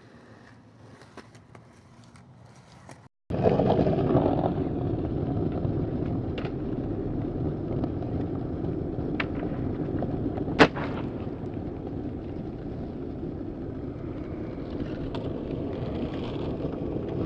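Steady rumble of skateboard wheels rolling on concrete, with a few sharp clacks of the board; the loudest clack comes about ten and a half seconds in. The first three seconds are faint, with a few light clicks.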